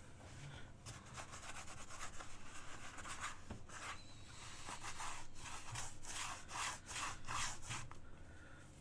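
Shirt fabric rubbed and dabbed against a stretched painting canvas in a run of quick, scratchy strokes, lifting off wet paint to leave a pattern.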